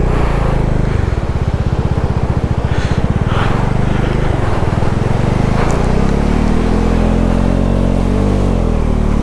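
Bajaj Dominar 250's single-cylinder engine pulling a motorcycle through a water crossing at low speed, its revs rising and then easing off again about six to eight seconds in.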